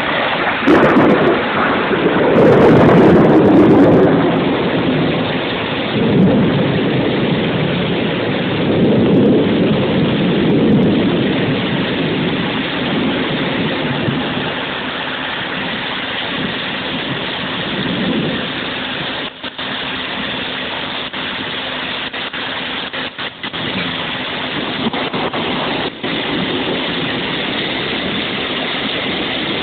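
Heavy rainstorm: a steady, loud rush of rain, with low rumbling swells through the first twenty seconds.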